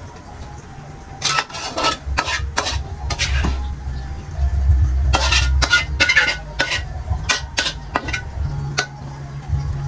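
Kitchen utensils, pots and dishes clattering: a run of short, sharp clinks and knocks, with a low rumble through the middle.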